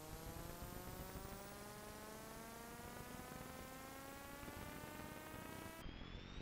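Faint buzzing hum over hiss, its several tones slowly rising in pitch; near the end they drop back and begin rising again.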